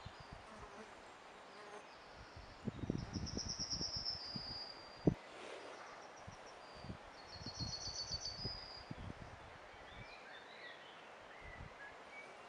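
Muffled low knocks and rumbling, like water and handling noise on an underwater camera. Over them come two short, fast-pulsed high trills, one about three seconds in and one about eight seconds in, from a bird or insect.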